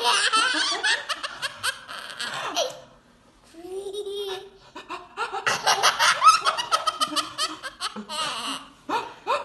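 Toddler's belly laughter: rapid fits of giggles, with a short lull a few seconds in before the laughing starts up again.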